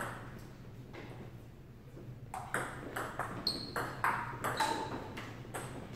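Table tennis rally: the ball clicking back and forth off paddles and the table in a quick run of sharp hits, starting about two seconds in after a quiet moment.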